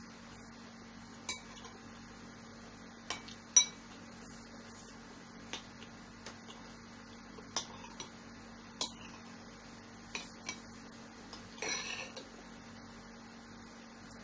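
Metal spoon and fork clinking against a bowl while eating meatball soup: a dozen or so separate sharp clinks, some ringing briefly, the loudest about three and a half seconds in, and a short scraping rattle about twelve seconds in.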